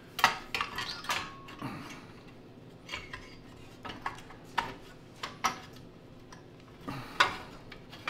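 Hard black plastic engine cover being handled and pressed into place on a Tecumseh snowblower engine: scattered clicks and knocks of plastic on plastic and metal, about a dozen over the stretch, with light scraping between them.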